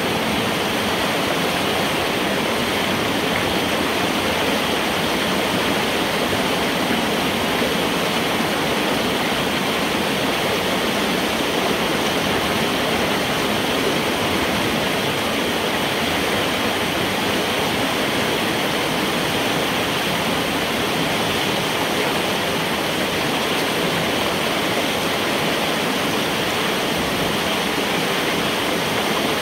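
Water rushing steadily through a large metal culvert pipe, gushing around a person's legs as beaver dam debris is cleared and the flooded water drains, heard from inside the pipe.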